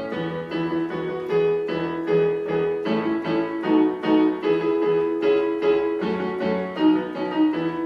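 Piano accompaniment to a children's song, played without singing: a steady run of notes, about three a second.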